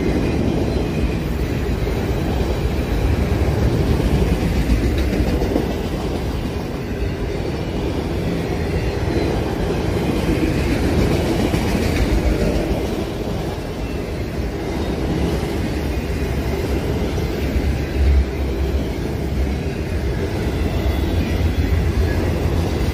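Freight train of enclosed autorack cars rolling past close by: steel wheels running on the rails in a steady, loud noise heaviest in the low end, with a brief louder bump about eighteen seconds in.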